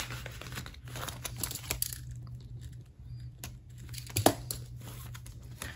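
Paper banknotes and cash envelopes being handled: rustling and crinkling with small clicks, and one sharper click about four seconds in, over a faint steady low hum.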